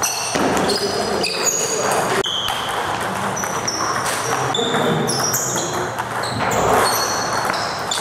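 Table tennis balls clicking off rubber-faced bats and the table top in rallies. The hits come thick and irregular, overlapping from more than one table.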